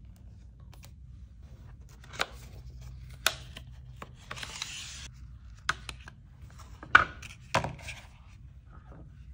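A paperboard phone-case box being opened and handled: several sharp clicks and taps as flaps and the inner tray are worked loose, the loudest about seven seconds in, with a short sliding rustle of paperboard about four seconds in.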